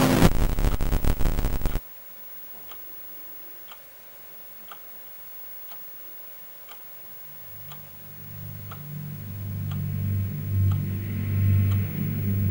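Loud music cuts off abruptly about two seconds in, leaving a faint hiss with a soft tick about once a second. From about halfway, a low droning hum swells in and grows steadily louder.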